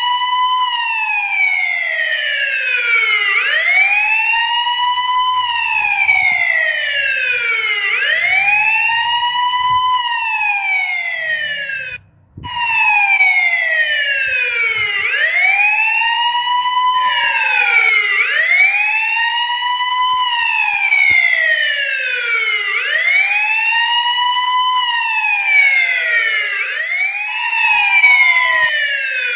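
Police car siren wailing: each cycle rises quickly in pitch and falls more slowly, repeating about every two and a half seconds. It cuts out briefly about twelve seconds in, and near the end a second wail overlaps out of step.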